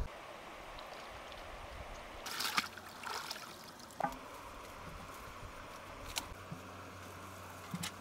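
Water splashing in two short bursts, a little over two and three seconds in, over a steady rush of flowing river water, as food is washed by hand in the river; a few light knocks come later.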